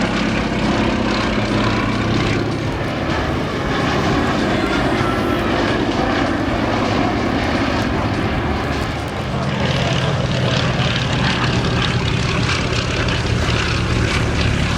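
Fairey Swordfish biplane's Bristol Pegasus nine-cylinder radial engine and propeller running steadily in flight; its low note grows stronger about nine seconds in.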